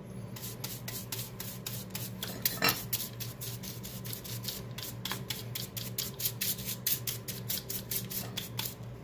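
Bristle brush scrubbing caked dust off a small exhaust-fan motor in quick, even strokes, about four or five a second.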